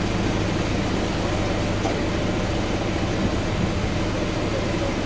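An engine running steadily at idle: a low, even hum with no change in pitch.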